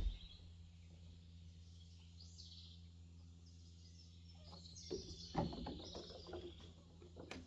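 Birds chirping over a steady low hum, with a few knocks and rustles in the second half, the loudest about five and a half seconds in.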